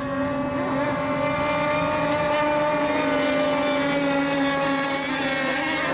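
Several radio-controlled racing boats' engines running at speed during a race, a steady, high-pitched engine drone with a slight drift in pitch.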